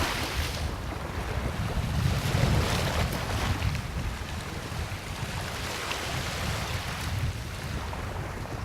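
Ocean waves breaking on a sandy beach and washing up, swelling about two seconds in and then fading away, with wind rumbling on the microphone.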